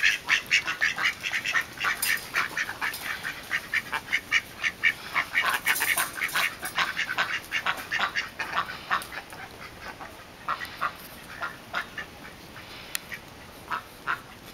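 Domestic ducks quacking: a fast run of short quacks, several a second, that thins out after about nine seconds into scattered quacks.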